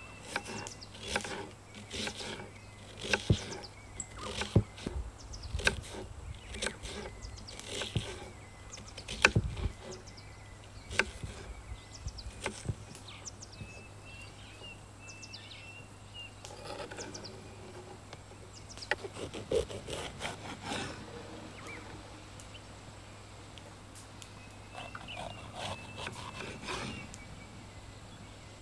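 Kitchen knife chopping an onion on a wooden cutting board: irregular sharp knocks of the blade against the board, thick through the first half, then sparser in a few short bursts.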